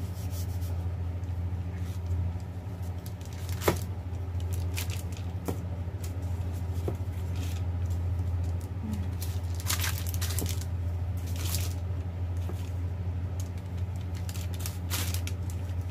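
Baking paper crinkling and rustling with a few sharp clicks as dough is pressed flat by hand and rolled under the paper with a wooden rolling pin, over a steady low hum.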